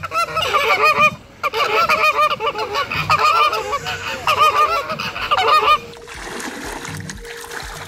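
A flock of flamingos honking, many short nasal calls overlapping several times a second. The honking stops abruptly about six seconds in, giving way to quieter splashing water.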